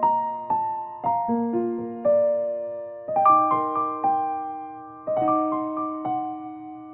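Background piano music: gentle chords and melody notes struck about once or twice a second, each ringing out and fading.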